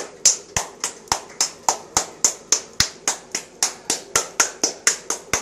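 Hands clapping in a steady, fast rhythm, about four sharp claps a second.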